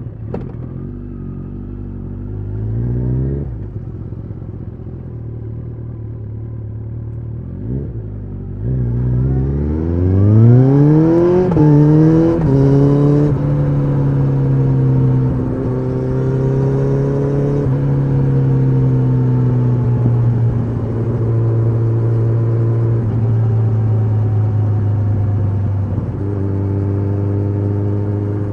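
Kawasaki ZX-14R inline-four with an Akrapovič muffler, its deep exhaust note idling, blipped once about three seconds in. It then pulls away, rising steadily in pitch under acceleration until an upshift drops it, and settles into a steady cruise.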